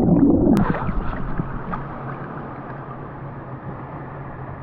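Water splashing for about the first second, then a steady rush of flowing stream water.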